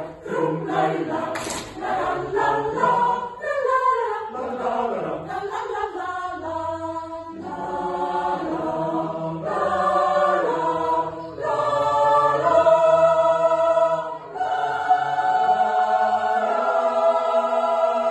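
Mixed choir singing a cappella. Shorter moving phrases give way to long held chords, ending on a sustained final chord.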